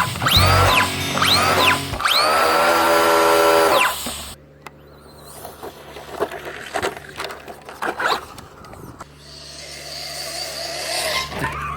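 Music with repeated rising-and-falling swooping tones and a held note for about four seconds, cutting off suddenly. After that there are only faint scattered knocks and clatter over a low hum.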